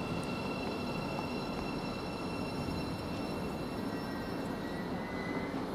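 Thameslink Class 700 electric multiple unit at the platform, giving a steady electrical hum with faint, thin high-pitched whines over it.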